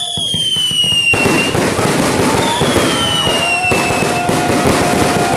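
Fireworks display going off: a dense, continuous crackle of bangs and pops, with whistling tones that slide down in pitch over a second or so.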